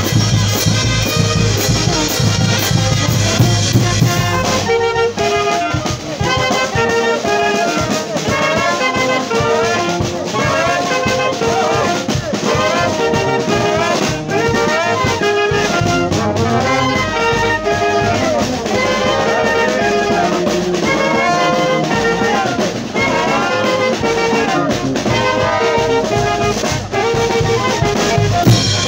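A brass band playing: trumpets and trombones carry the melody over a sousaphone. The bass drum and cymbals drop out about five seconds in, leaving the brass on their own, and the full band comes back in at the very end.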